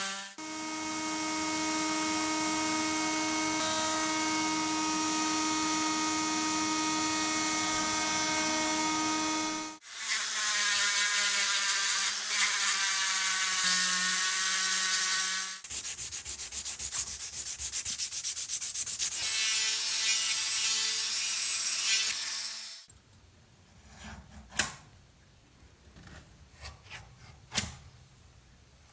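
Workshop restoration sounds: a power tool running with a steady whine, then rubbing and sanding of parts with a fast even ticking, and a few soft clicks near the end.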